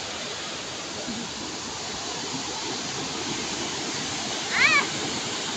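Steady rush of a tall waterfall. About four and a half seconds in, a brief high animal call, a short cry that rises and falls, stands out above it.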